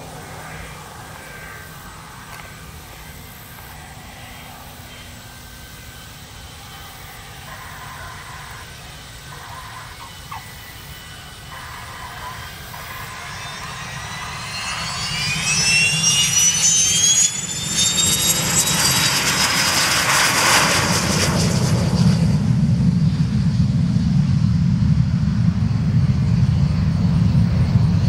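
Aero L-39 Albatros jet trainer's turbofan on a touch-and-go: faint at first, then about halfway through a high whine rises in pitch and the sound grows loud as the jet rolls past on the runway and power comes up. It turns to a deep steady rumble as the jet climbs away.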